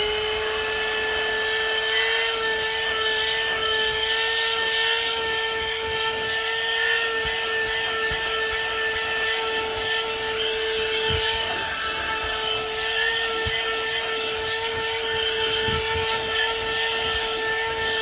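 AutoGrandpa 12V handheld car vacuum cleaner running steadily with a high-pitched motor whine over an airy rush of suction, its nozzle working over a carpeted car floor mat to pick up bits of paper.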